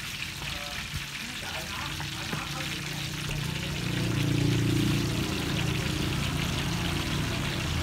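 Hot oil sizzling steadily in a deep-frying pot for ladle fritters. A louder low hum swells and fades between about four and six seconds in.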